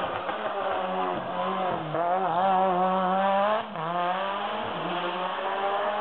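Hill-climb race car accelerating hard past, its engine note rising. It drops briefly at a gear change about three and a half seconds in, then climbs again.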